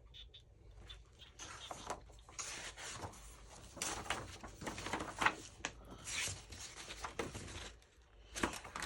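Paper rustling and shuffling in irregular bursts as paper pieces are handled and sorted by hand.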